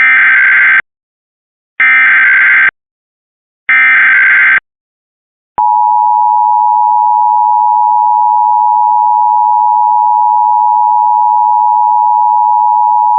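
Emergency Alert System activation tones: three short bursts of raspy warbling SAME header data, then the EAS two-tone attention signal, a steady chord of two close pitches held for about eight seconds. Very loud.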